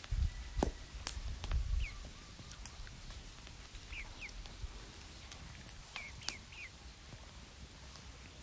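Short bird chirps, each a quick downward slide, coming singly and in pairs, over a quiet outdoor background. A few low thumps and light clicks come in the first two seconds.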